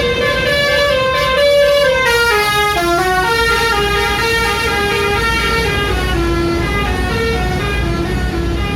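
Bus 'telolet' musical horn playing a tune of several notes that change in steps, with a run of falling notes about two to three seconds in, over a bus engine running.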